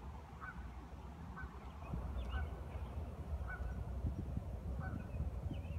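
A bird calling repeatedly, about six short calls roughly a second apart, over a steady low rumble.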